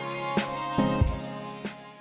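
Instrumental background music with a soft regular beat, fading out near the end.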